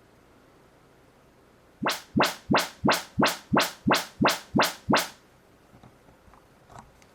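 Audyssey MultEQ XT32 calibration test signal from a Denon AVR-X4700H receiver through a loudspeaker: nine quick rising 'whoop' sweeps, about three a second, starting about two seconds in and stopping after about three seconds. These are the sweeps the receiver uses to measure the speakers and the room at the microphone position.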